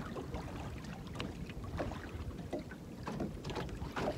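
Small waves lapping and slapping against a fishing boat's hull in scattered brief splashes, over a low steady rumble.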